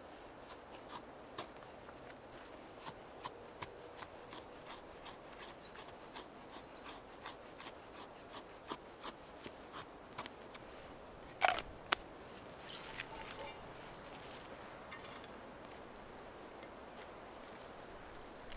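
Mora bushcraft knife shaving curls from a stick on a wooden stump to make feather sticks: a run of short, irregular scraping clicks, with a louder scrape a little past halfway. Short high chirps of a small bird sound through the first half.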